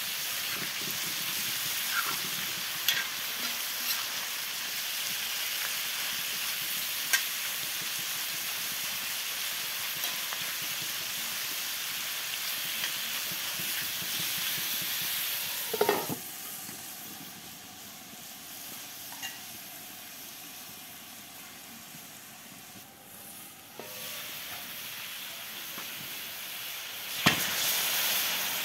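Pieces of goose meat sizzling on a round iron sac griddle over a wood fire, with a metal spoon scraping and clicking against the iron as the meat is stirred. The sizzle drops away about halfway through, and near the end a sudden loud hiss starts as water from a kettle hits the hot griddle and turns to steam.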